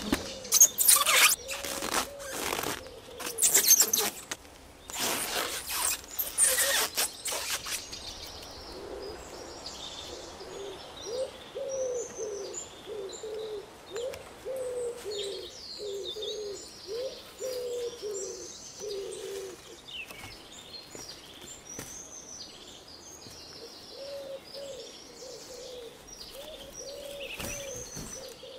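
Clear plastic wrap crinkling and crackling as it is stretched and pressed onto a wooden shelter frame, loudest over the first several seconds. After that, a bird gives a long run of low, repeated cooing calls, about two a second, with small birds chirping high above.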